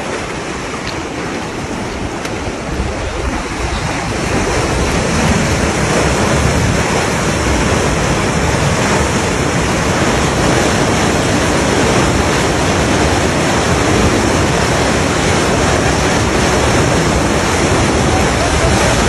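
Water rushing and churning out of a culvert under a concrete crossing into a concrete irrigation canal: a steady, loud rushing noise that grows louder over the first few seconds.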